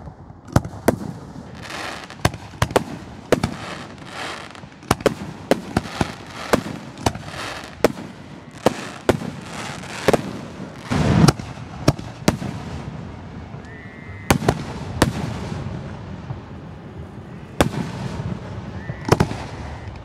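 Aerial fireworks bursting overhead: dozens of sharp bangs in quick, irregular succession, with crackling between them. The loudest, about eleven seconds in, is a deeper boom.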